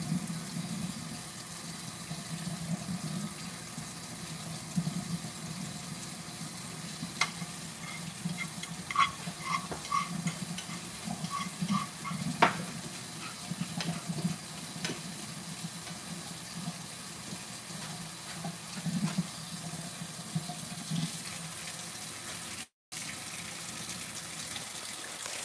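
Hot water running steadily from a kitchen tap into the sink, left on so the poured-off chorizo fat won't clog the drain. A few light clinks of kitchenware sound around the middle.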